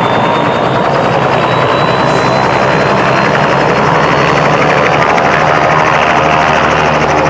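Robinson R66 Turbine helicopter running on the ground with its main rotor turning: a steady rotor chop under a high turbine whine that slowly rises in pitch.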